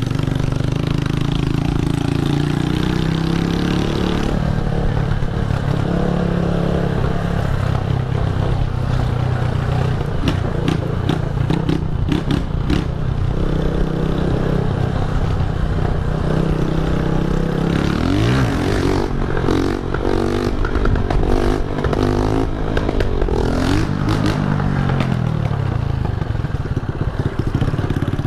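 Honda CG125 single-cylinder motorcycle with a loud exhaust being ridden, its engine note rising and falling with the throttle. A clear rev climb comes about two-thirds of the way through, and some clattering ticks come near the middle.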